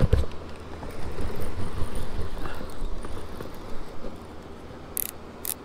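Handling noise on a boat-mounted action camera: a low rumble with irregular knocks as a hand and sleeve work close to it, then two sharp clicks about half a second apart near the end.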